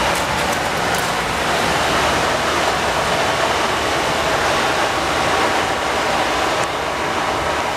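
Steady, loud rushing outdoor noise with no clear pitch or rhythm, with a few faint clicks in the first second.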